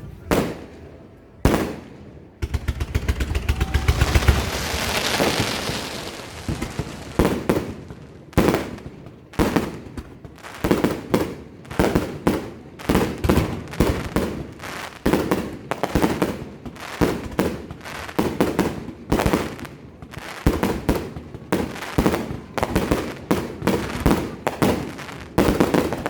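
Fireworks going off: a dense run of sharp bangs and reports, several a second, with a continuous crackling hiss about three to six seconds in.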